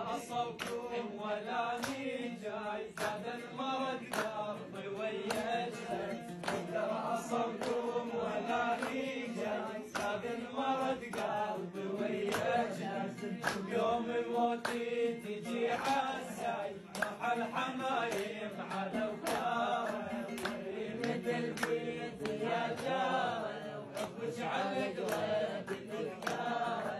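Men's voices singing an Iraqi folk song in a chanting style, with an oud plucked along as accompaniment.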